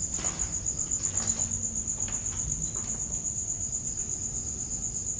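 Night insects, crickets, chirping in a steady high-pitched chorus with a fast, even pulse, with a few faint soft knocks mixed in.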